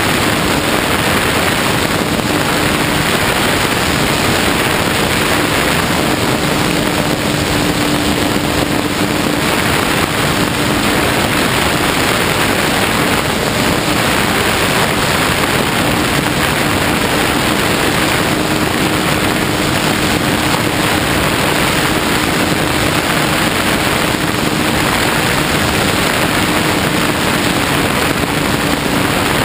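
Radio-controlled plane in flight, heard from its onboard camera: a loud, steady rush of wind and propeller noise over a steady motor drone that fades out briefly a few times.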